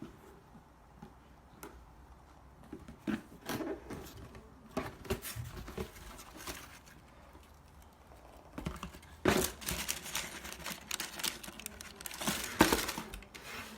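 Crinkling and rustling of packaging being handled, in irregular bursts that get louder in the second half.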